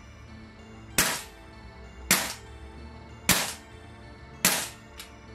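EMG Noveske N4 gas blowback airsoft rifle dry-firing four semi-auto shots about a second apart, gassed but with no BBs: each a sharp crack of the blowback bolt cycling. Faint background music runs underneath.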